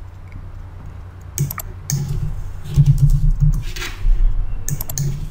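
Typing on a computer keyboard: scattered keystrokes and clicks, with a few dull low knocks about three seconds in.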